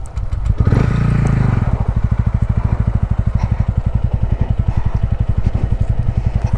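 Motorcycle engine briefly revving up about half a second in, then settling into a steady, rapid, even beat at low revs.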